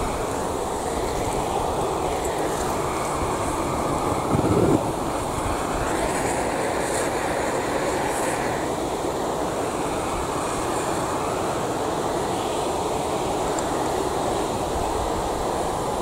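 Handheld cartridge gas torch burning with a steady hiss, its flame directed onto a burning plastic coffee maker, with one brief louder surge about four and a half seconds in.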